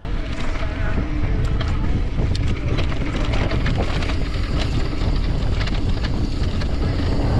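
Wind buffeting the camera microphone as a mountain bike rolls fast along a dirt singletrack, with the tyres crunching over dirt and small stones and the bike rattling in scattered sharp clicks.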